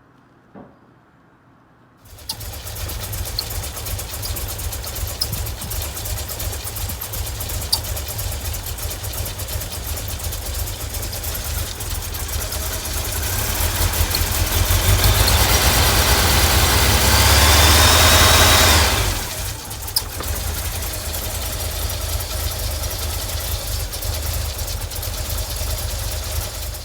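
1989 VW Vanagon's 2.1 litre water-cooled flat-four (Wasserboxer) engine starting about two seconds in and idling roughly. It gets louder for several seconds in the middle, settles back to idle, and stops near the end. The rough idle followed new fuel hoses and a new fuel pressure regulator, and the owner thinks it came from poorly seated injectors.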